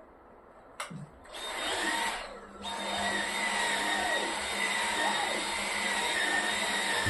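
Cordless handheld stick vacuum switched on with a click just under a second in, its motor whining up to speed, cutting out briefly and starting again, then running steadily as it vacuums a fabric sofa.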